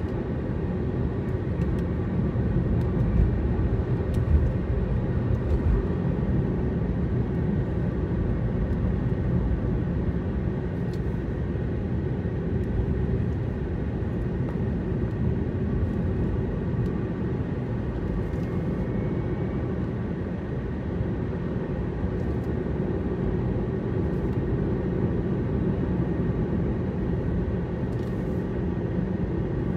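A car driving at a steady speed: a continuous low rumble of engine and tyre noise.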